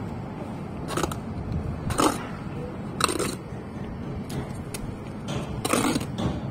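Bricklayer's steel trowel scraping mortar on the wall, a few short scrapes about a second apart, then two more close together near the end, over a steady low traffic hum.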